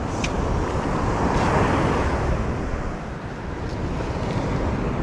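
Surf washing ashore, with wind buffeting the microphone; the wash swells about a second or two in. A few light clicks.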